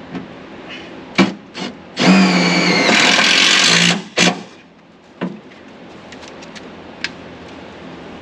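Power drill driving a fine-thread tek screw into an aluminium toolbox in one loud run of about two seconds, with a few sharp clicks and knocks before and after it.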